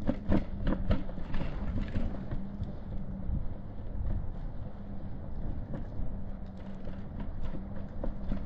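Footsteps on pavement, quicker in the first couple of seconds and sparser after, over a steady low hum.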